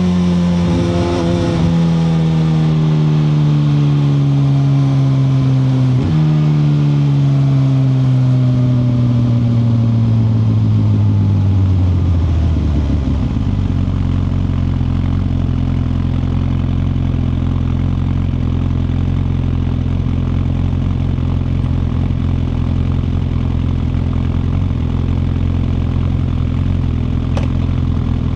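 2021 Suzuki GSX-R1000R inline-four engine slowing down. Its pitch falls steadily, with sharp rises in revs about a second in and again about six seconds in, as on downshifts. After about thirteen seconds it settles to a steady low idle.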